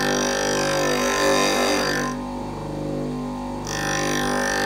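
Wickes bench grinder running with a steady drone while a 9/16-inch drill bit held in a sharpening jig is ground against the side of the wheel. The grinding noise stops about two seconds in and starts again about a second before the end.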